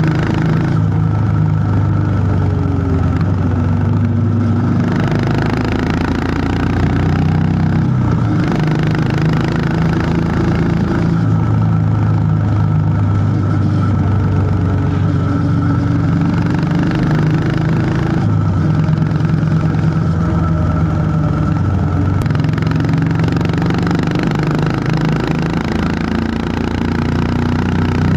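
Honda H'ness CB350's single-cylinder engine running while riding, its note rising and dropping several times with throttle and gear changes.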